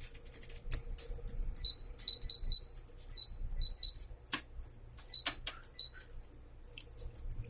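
Keyboard keys being pressed and released in quick, irregular succession, each press a short click, many with a faint high ring; the keys are being tested after servicing and have become softer to press.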